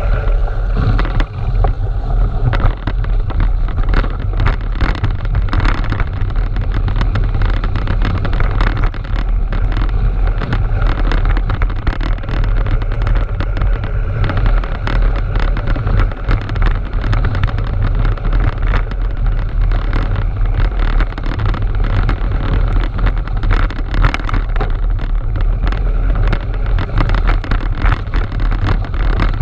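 Wind buffeting the microphone of a camera carried on a moving bicycle, a steady low rumble, with tyre noise on snow and frequent small knocks and rattles from the bike over the uneven track.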